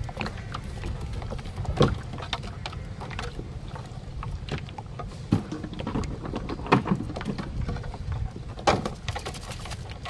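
Irregular knocks and clatter in a small wooden paddle boat as crab traps are hauled and handled aboard, over a steady low rumble of water. The sharpest knocks come about two seconds in, near seven seconds and near nine seconds.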